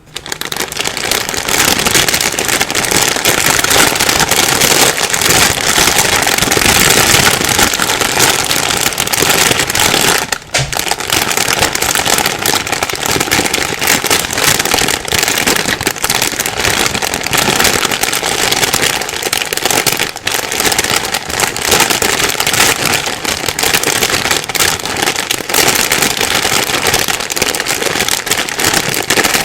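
A plastic bag being rustled and crumpled by hand without pause: dense crinkling made of many small clicks, with a brief lull about ten seconds in.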